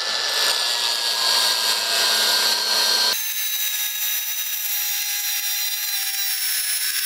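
HPT MA20-AG185N cordless brushless angle grinder on its third speed setting, its steel cut-off wheel grinding through a rebar, a steady high whine over harsh grinding noise. About three seconds in the sound changes abruptly and turns thinner, the whine sagging slightly in pitch as the wheel works through the bar.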